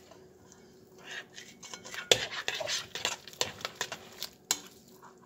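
Metal spoon stirring thick baked beans with bacon and hot dog pieces in a glass mixing bowl, clinking and scraping against the glass. There is a brief lull at first, then a run of uneven clinks, the sharpest about two seconds in.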